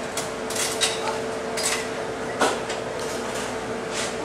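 Diner background sound: dishes and cutlery clinking and clattering now and then, over a steady machine hum.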